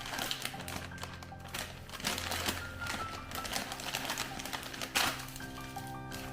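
Background music with steady tones, over irregular clattering and clicking and one sharp knock about five seconds in.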